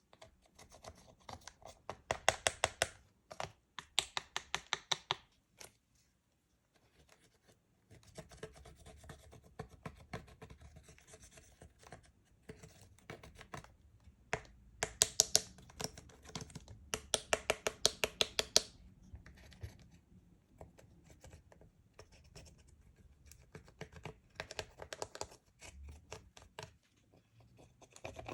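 Slime being kneaded and pressed by hand, with runs of rapid sharp clicks and pops as air pockets burst. The loudest runs come about two seconds in and again around the middle, with softer clicking and a brief lull between.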